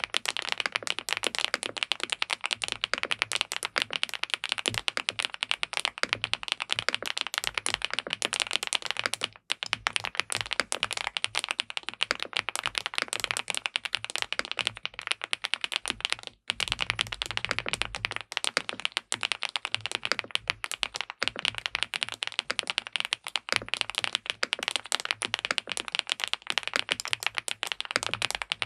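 Fast, continuous typing on an SPM PL87W (Mongdol87) tenkeyless mechanical keyboard with linear switches and a PC plate, a dense run of key clacks with two very brief breaks.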